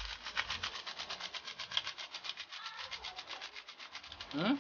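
Foil sachet of Magic Sarap seasoning shaken rapidly over a wok to empty out the powder: a fast, even rustling rattle of about a dozen strokes a second that stops just before the end.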